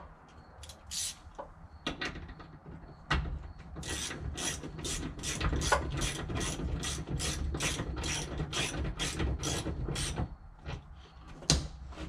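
Hand ratchet wrench clicking in quick, even strokes, about three to four a second, as it turns the upper seatbelt anchor bolt on the B-pillar. A single knock comes just before the ratcheting starts.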